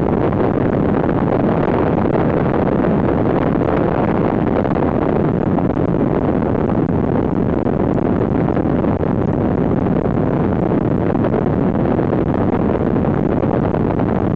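Steady rush of airflow over the canopy and fuselage of an L-13 Blaník glider in flight, heard inside the cockpit as wind noise on the microphone; no engine is running.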